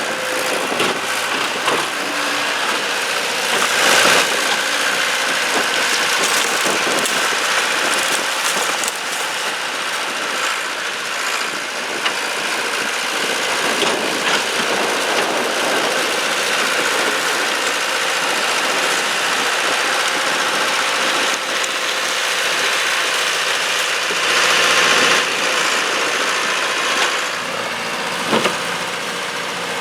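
Bobcat skid-steer loader engine running steadily while it works, with a few sharp knocks and crashes of debris, the loudest about four seconds in and near the end.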